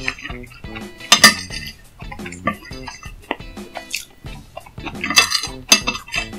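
Eating utensils clinking and scraping against a dish, a series of sharp irregular clicks with the loudest about a second in and two more near the end, over background music.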